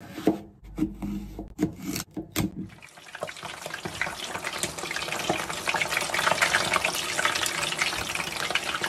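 A kitchen knife cuts through eggplant and knocks on a cutting board, several cuts in the first three seconds. From about three seconds in, battered vegetables fry as tempura in hot oil: a dense crackling sizzle that builds up and holds.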